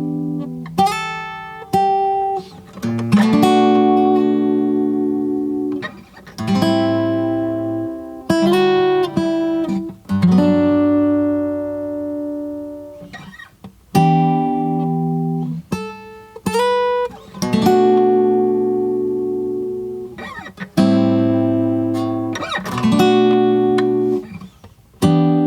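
Solo guitar playing plucked chords that ring out and fade, in phrases with short pauses between them.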